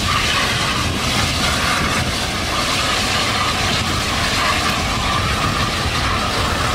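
Motorcycle engulfed in a large fire: a steady, even rushing noise of the flames.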